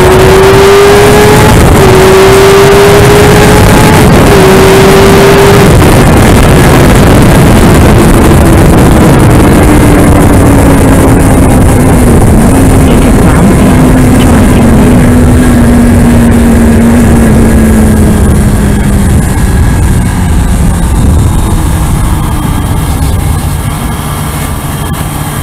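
Kawasaki Ninja ZX-6R inline-four engine at track speed under heavy wind rush: its pitch climbs through two quick upshifts in the first six seconds, then falls slowly as the throttle is rolled off, and it runs quieter in the last few seconds as the bike leans into a corner.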